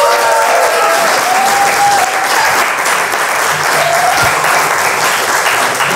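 Audience applauding steadily, with a few voices heard over the clapping.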